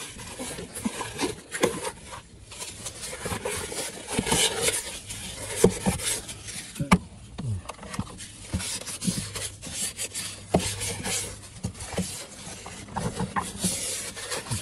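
A paper towel in a nitrile-gloved hand rubbing and rustling against the plastic capless fuel filler neck as it is wiped clean, with scattered small clicks and taps.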